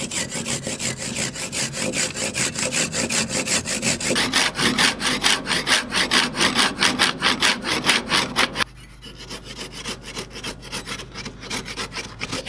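Long-bladed hand saw cutting through a thick wooden plate in quick, even strokes, about five a second. The sawing drops to a quieter level about eight and a half seconds in.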